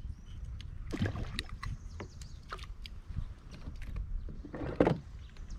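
Short hollow knocks and clatter on a plastic fishing kayak as a caught fish is handled at its side, with two louder splashing sounds, about a second in and near the end.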